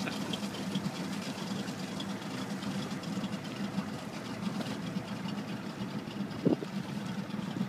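Boat engine idling steadily, with one short rising sound about six and a half seconds in.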